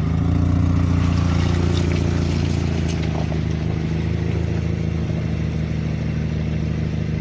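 Off-road SUV engine idling steadily close by, with a few faint clicks over it.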